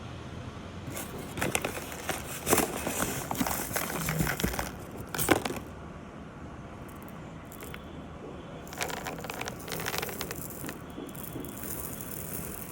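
Loose lab-grown mono-crystal diamonds clicking and rattling against one another and their holder, in two spells of quick clicks: one from about a second in to about five seconds, the other near ten seconds.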